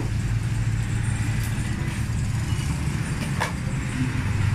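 Steady low rumble of background noise, with a couple of faint clicks, one about a second and a half in and one about three and a half seconds in.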